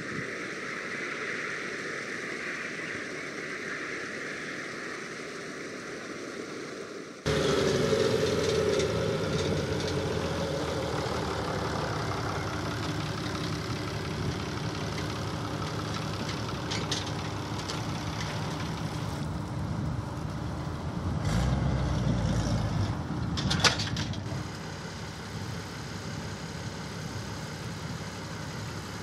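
A combine harvester runs at a distance as a fainter steady machine noise. Then, after an abrupt change about a quarter of the way in, a farm tractor's diesel engine runs close by. The engine swells louder for a couple of seconds about two-thirds of the way through, with a single sharp knock just after.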